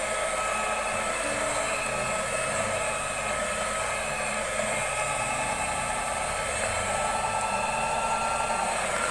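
Electric hand mixer running at a steady speed, a constant motor whine over the sound of its beaters whisking cake batter as melted margarine is mixed in.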